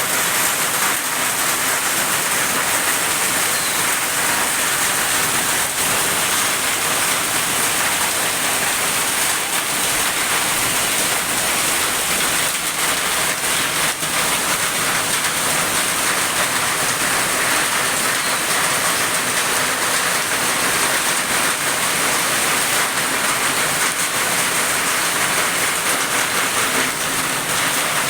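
Heavy rain pouring down steadily, a dense even hiss of rain hitting surfaces.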